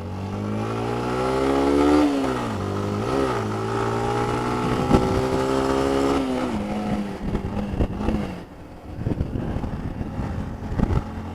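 Motorcycle engine pulling away and accelerating, rising in pitch, with a brief dip at a gear change about two seconds in, then running steadily before easing off after about six and a half seconds. Crackling wind noise on the microphone takes over near the end.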